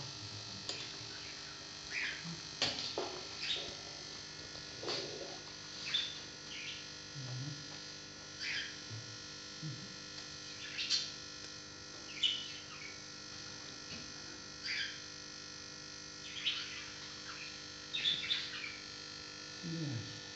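Parrot chirping: short, high chirps scattered every second or two.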